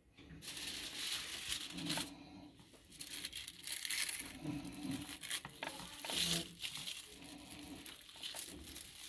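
Hands rolling up a soft flatbread wrap around a chicken and salad filling on a plate: rustling and crinkling in irregular bursts.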